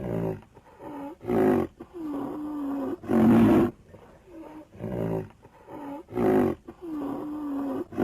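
Pachyrhinosaurus creature sound effect: loud bellowing calls alternating with short grunts and a long, held low moan, the sequence repeating.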